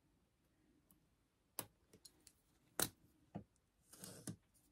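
Faint handling sounds of a clear plastic ruler and a pencil on a vinyl piece: a few light clicks and taps, then a short scratch of the pencil marking the vinyl near the end.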